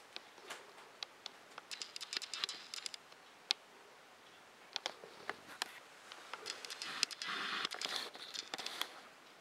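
Japanese quail moving about on newspaper: scattered sharp taps from its feet and beak, with two stretches of paper rustling, about two seconds in and again around seven to eight seconds.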